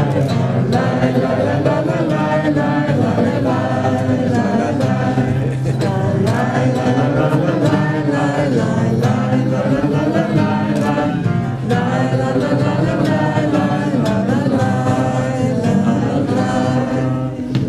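A group of people singing together in unison, accompanied by a strummed acoustic guitar.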